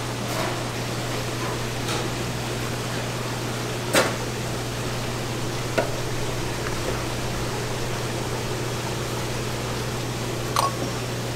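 Steady low electrical hum and room noise from counter machinery, with a few sharp clicks and taps over it. The loudest click comes about four seconds in, and a small cluster of light clicks comes near the end as an aluminium can and its lid are handled.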